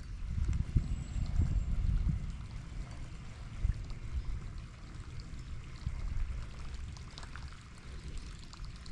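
Watery pouring and splashing sounds over an uneven low rumble, with scattered light ticks.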